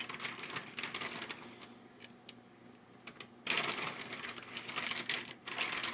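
Clicking, clattering and rustling of raw chicken being put into a pot of boiling water, growing louder and hissier from about three and a half seconds in.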